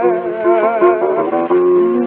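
Music from a 1920 acoustic-era recording of a tango song by a vocal duo with guitar accompaniment: held, wavering notes over the guitar, with the thin, muffled sound of an early record.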